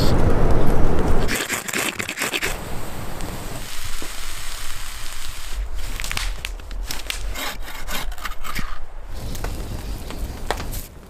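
A loud rushing noise for about the first second, then a dry conifer branch dragged over snowy ground, its twigs scraping, rubbing and snapping in many sharp cracks.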